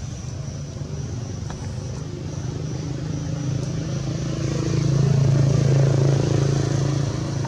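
A motor vehicle's engine running steadily, growing louder past the midpoint and easing slightly near the end, as if the vehicle is passing by.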